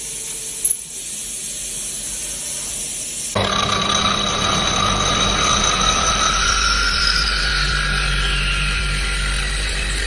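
Hiss of cutting coolant spraying as a CNC end mill cuts a steel block, with a couple of short knocks. A few seconds in it cuts suddenly to the louder whine of a wood-turning lathe's spinning cutter head shaping a wooden blank: a steady low hum under tones that glide slowly, one rising a little and one falling.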